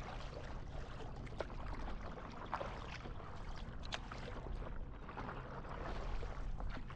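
Water lapping and sloshing against a paddleboard, with small irregular splashes from the paddle dipping into the water.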